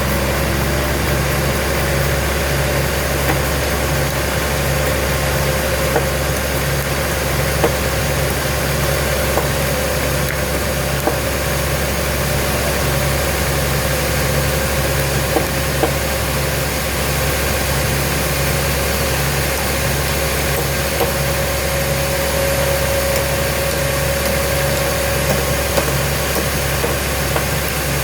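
Sawmill machinery running steadily: a continuous mechanical drone with one held whine and a low, evenly pulsing throb, with a few faint clicks.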